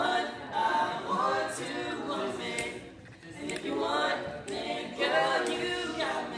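A group of four young men singing a cappella in harmony, with no instruments.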